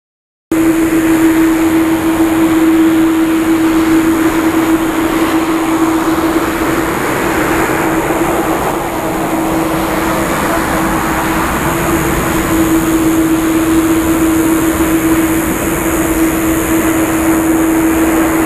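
Boeing 787-8 airliner's jet engines running near idle as it taxis: a steady loud hum with a constant mid-pitched whine, starting about half a second in.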